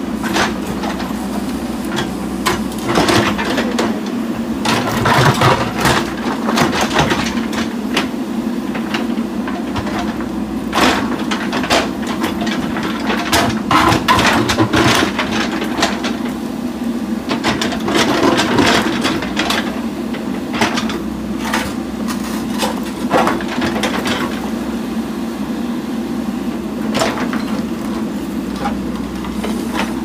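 JCB 3DX backhoe loader's diesel engine running steadily while the backhoe bucket digs into stone rubble, with frequent irregular knocks and scrapes of rock against the steel bucket.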